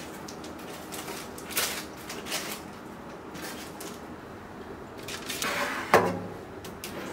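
Light knocks and rustling of things being handled, then a scrape and a solid thump about six seconds in, like a door or lid shutting.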